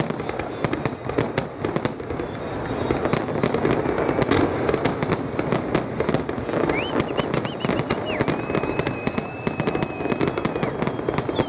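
Fireworks display: dense, rapid volleys of shell bursts and crackling bangs going off without pause. In the last few seconds a high steady whistle sounds over them.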